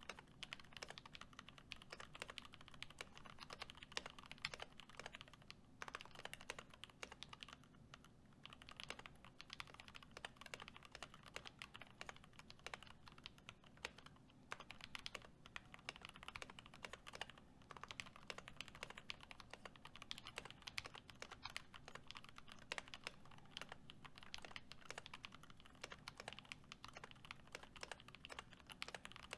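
Continuous fast typing on a custom mechanical keyboard: lubed and filmed Gateron Milky Yellow linear switches in a brass plate and aluminium case, with PBT keycaps clacking, in quick runs broken by short pauses.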